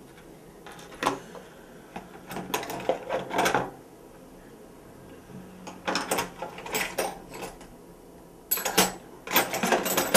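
Metal hand tools clinking and clattering as they are picked up and handled, in three spells of clatter with short pauses between.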